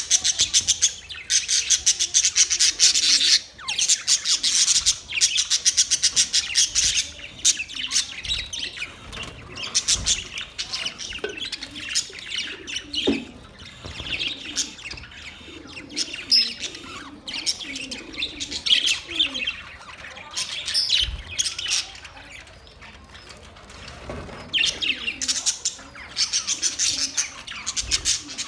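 Budgerigars chirping and chattering in a fast, dense stream of high chirps. It is loudest at the start and again near the end.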